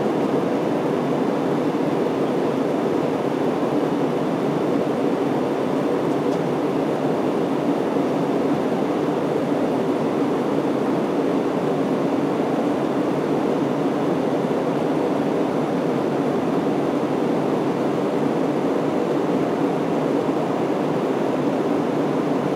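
Steady cabin noise inside an Airbus A320 in the climb after takeoff: an even rush of engine and airflow noise heard from a window seat, with no change in pitch or level.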